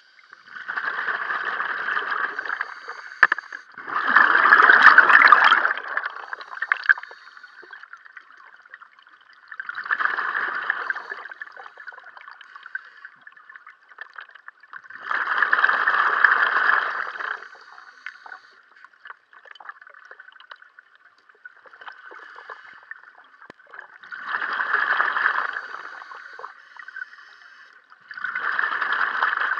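Scuba regulator exhaust bubbles from a diver breathing underwater: six loud bursts of bubbling, each two to three seconds long, every four to six seconds, with quieter pauses for the in-breaths between.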